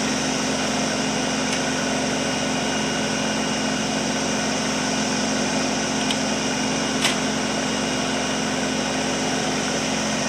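Kubota compact tractor's diesel engine running steadily with the backhoe attached, with a single sharp click about seven seconds in.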